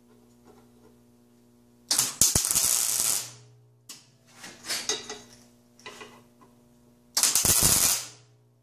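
Wire-feed MIG welder's arc crackling and spattering in short tack welds on steel: a loud burst about two seconds in, weaker sputtering around the middle, and another loud burst near the end.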